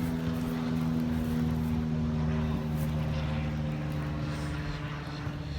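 A steady, low engine hum with a rumble underneath, fading slightly near the end.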